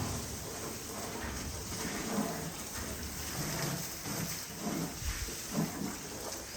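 Water splashing and pattering steadily, with low rumbling knocks scattered through.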